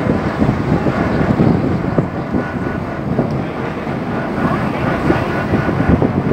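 Wind buffeting the microphone on the open deck of a moving passenger boat, over the steady low rumble of the boat's engine.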